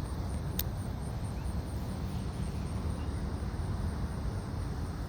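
Outdoor ambience: a steady low rumble under an insect chirping in a high, even pulse about three times a second, with one sharp click just over half a second in.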